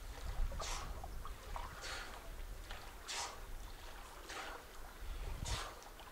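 Swimming strokes splashing in cold reservoir water, a regular splash about once a second, over a steady low rumble.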